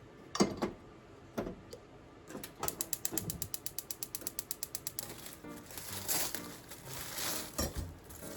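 Two separate knocks, then a rapid run of evenly spaced mechanical clicks, about nine a second for roughly two and a half seconds, like a ratchet being turned, followed by rustling.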